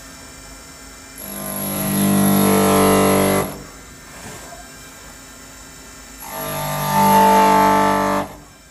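CNC milling cutter cutting into a metal casting with a steady pitched ringing, in two cuts that each build up over about a second and stop abruptly. Between the cuts the machine runs more quietly.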